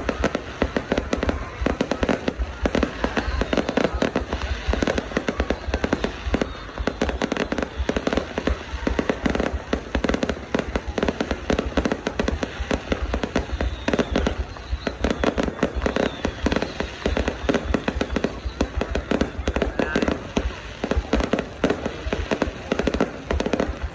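Fireworks going off without a break, a dense rapid stream of bangs and crackles.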